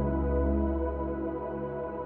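Slow ambient new-age music: held, sustained tones layered over a deep bass drone, with no beat.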